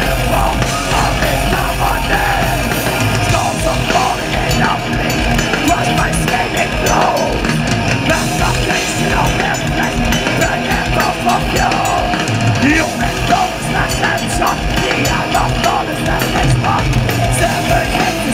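Thrash metal band playing live at full volume: distorted electric guitars, bass guitar and drum kit, heard from the crowd.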